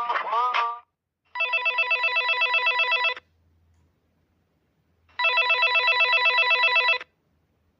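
Telephone ringing: two rings of about two seconds each, each with a fast trill, separated by about two seconds of quiet.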